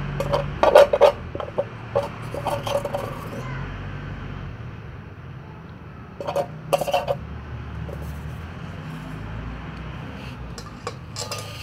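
Cats chewing and smacking on food up close, in short runs of wet clicky eating noises with pauses between, over a steady low hum.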